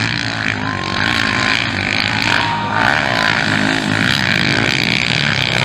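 Motocross bikes racing on the track, their engines running hard and revving up and down.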